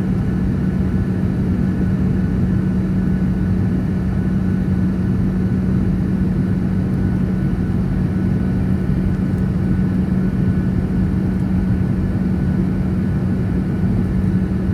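Airliner cabin noise in flight: a steady engine and airflow drone with a constant low hum and a faint steady whine above it.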